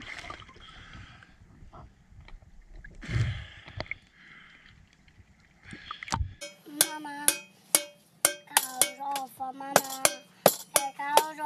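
Splashing water at the sea surface and a man's voice. About six seconds in, a toddler starts beating a metal pot lid with a wooden stick: quick, irregular metallic clangs that ring, with the child's voice singing along.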